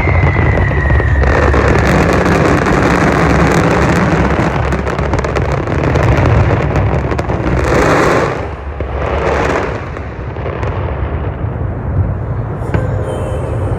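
Fireworks going off: a falling whistle fades in the first second, then dense crackling, then two louder bursts about eight and nine and a half seconds in, after which it dies down.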